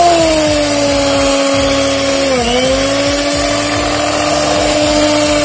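Electric hand mixer running, its beaters whirring through a runny batter: a steady motor whine that drops slightly in pitch just after the start and dips briefly about halfway through.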